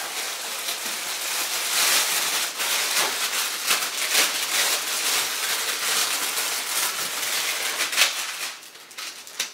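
Clear plastic wrapping crinkling and rustling with many small crackles as it is pulled and bunched off a telescope tube, dying away in the last second.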